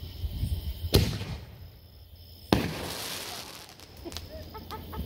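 Fireworks going off: two sharp bangs about a second and a half apart. The second is followed by a crackling hiss, and a few small crackles come near the end.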